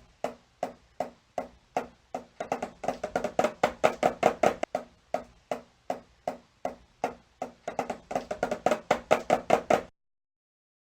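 Rhythmic knocking or tapping, about three short pitched knocks a second, quickening twice into fast runs, then stopping abruptly.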